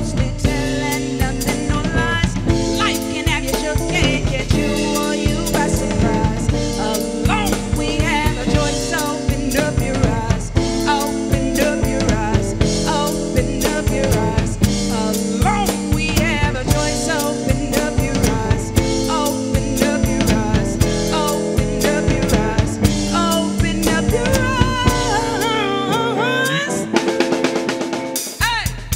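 Live blues band playing: a drum kit with snare and bass drum keeps a steady beat under electric guitar lines. Near the end the low end drops out and the level dips briefly before the full band comes back in.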